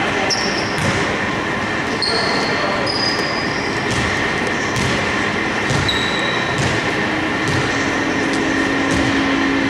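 Basketball game on a hardwood court: sneakers squeak in short high chirps a few times and a ball thumps now and then, over a steady hum of the hall.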